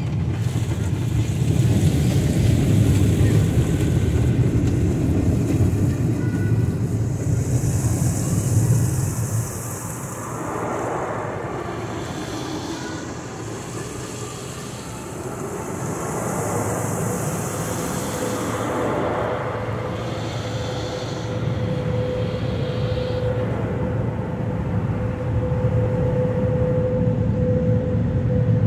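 Automatic car wash heard from inside the car's cabin: a steady low rumble of the wash machinery, with two spells of high hissing as water jets spray the car. A steady hum joins about two-thirds of the way through, as the car reaches the dryer blowers.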